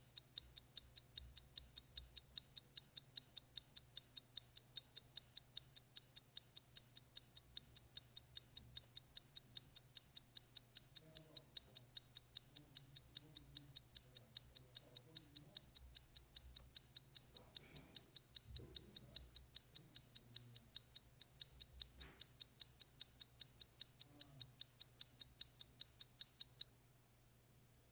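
Clock ticking in a fast, even rhythm, about three to four sharp ticks a second, which stops abruptly near the end.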